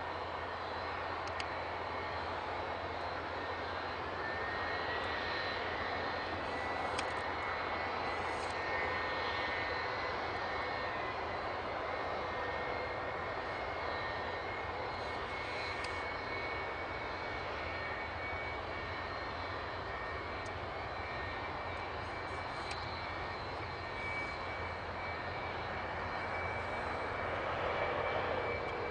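Jet airliner engine running steadily, a constant noise with a high whine held at one pitch.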